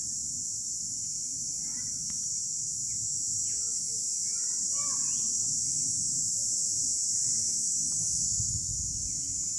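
Steady high-pitched buzzing of insects in the surrounding trees, with a few short bird chirps over it and a low outdoor rumble.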